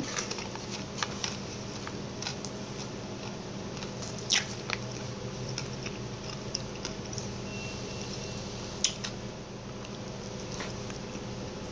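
Close-up eating sounds: chewing salad, with scattered sharp clicks from a plastic fork against a foam plate, the two loudest about four and nine seconds in, over a faint steady hum.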